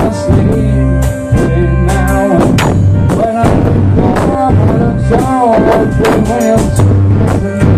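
Pop-rock song in an instrumental passage between sung lines: drum kit keeping a steady beat under bass and a bending lead melody line, with guitar.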